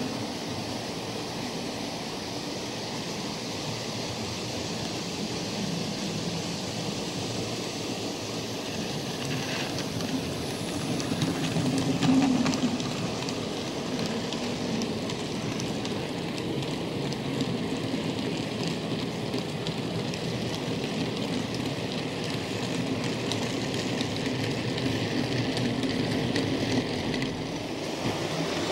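OO gauge model goods train running: the locomotive's motor and the wagon wheels rolling over the track make a steady rumble. It grows louder as the wagons pass close by, loudest about twelve seconds in.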